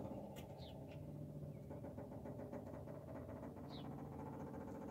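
GM 6.2-litre diesel V8 running steadily just after a cold start at around 30 °F, with the block heater not plugged in overnight.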